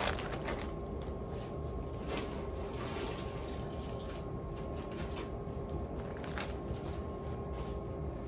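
Soft rustling and a few faint clicks of shredded chicken being tipped from a plastic zip bag into a pot of broth, over a faint steady hum.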